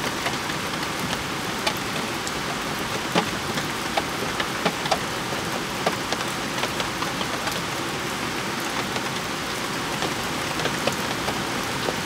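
Heavy rain falling steadily on a Land Rover Discovery 4, heard from inside the car, with many sharp single drops striking close by.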